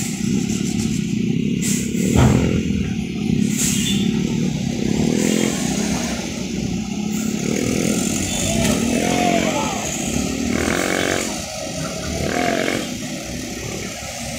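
Heavy diesel truck engines running and revving on a steep hairpin, their pitch rising and falling, with a loud short burst about two seconds in. Several vehicles idle and pull past close by, and people's voices are heard.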